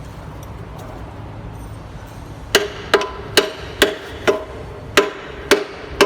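Hammer blows on metal during a machine repair: about eight sharp strikes, roughly two a second, starting about two and a half seconds in. Each blow rings briefly.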